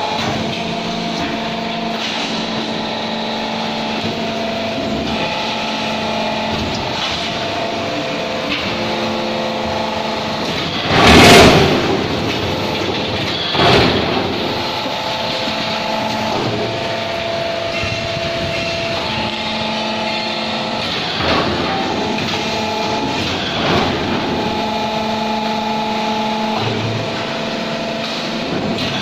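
Automatic concrete block making machine running through a test cycle: a steady hydraulic-pump and motor hum whose tones shift in pitch every few seconds as the machine changes step. A loud burst comes about eleven seconds in, a shorter one near fourteen seconds, and fainter ones later.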